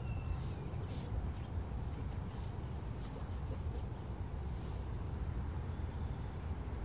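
Flock of chickens foraging in dry leaf litter: faint rustling and scratching in the leaves, a cluster of it in the middle, and a couple of brief high chirps, over a steady low rumble.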